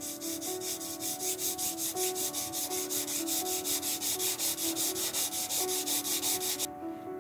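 Fine pink P1500 sandpaper rubbed back and forth by hand over the clear-coated metal body of a 1/43 scale model car, flatting the clear coat. Quick, even strokes, about four a second, stopping about half a second before the end.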